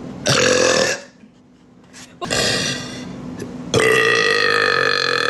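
A woman burping three times: two shorter burps, then a long, drawn-out burp held at a steady pitch.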